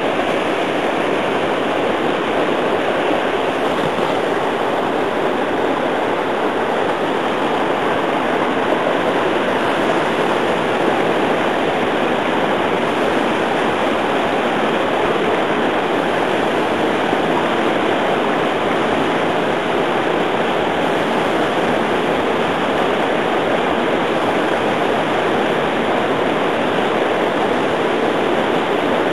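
River rapids rushing over and between boulders: a loud, steady roar of white water.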